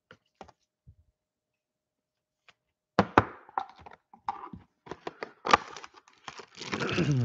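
Cardboard trading-card hanger box being pried and torn open by hand. A few faint clicks at first, then a run of sharp cracks and clicks from about three seconds in, building to a longer creaking tear near the end.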